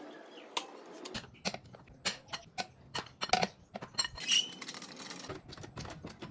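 A quick run of metal clinks and knocks, like hand tools and other metal items being picked up and set down against each other; the hits are loudest and densest in the middle and stop about four and a half seconds in.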